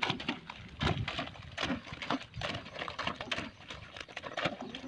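Short-handled hoes chopping and slapping into wet clay-and-straw mud, irregular squelching strokes about one or two a second, as straw is mixed into the mud to make plaster.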